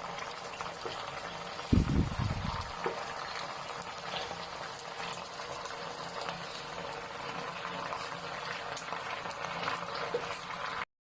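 Chicken frying in hot oil: a steady sizzle scattered with small pops, with a low thump about two seconds in. The sound cuts off abruptly just before the end.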